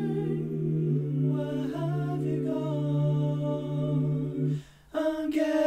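A cappella choir in five parts (SSATB) singing wordless, sustained chords over a low bass line, the harmony shifting about a second in. Near the end the voices stop briefly, then come back in higher and louder.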